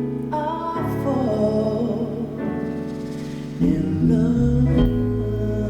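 Live ballad performance: a male singer holds a wavering, ornamented note over sustained band chords, then the accompaniment continues.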